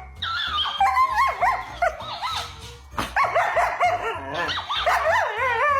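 A dog whining and yowling in long cries that waver up and down in pitch, over background music with a steady low beat.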